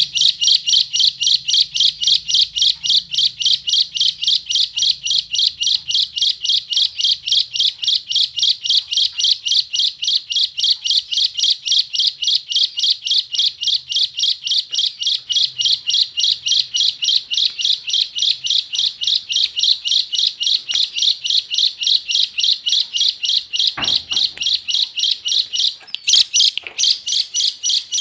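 A tame pet bird chirping in a fast, even series of high chirps, about four a second, with a short pause near the end. A brief low thump sounds a little before the pause.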